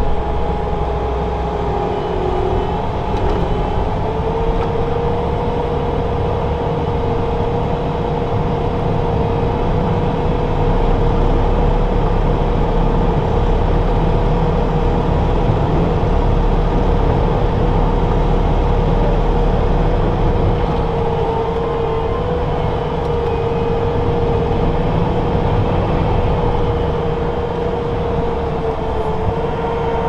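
Track skid steer running and driving, heard from inside its cab: a steady engine rumble with a constant whine over it.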